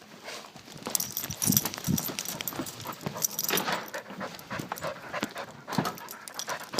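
A dog panting close to the microphone, with scattered clicks and rustles of the harness-mounted phone as she moves.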